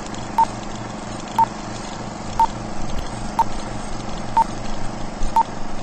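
Film-leader countdown effect: six short beeps, about one a second, all at the same pitch, over the steady whirring, clattering run of a film projector.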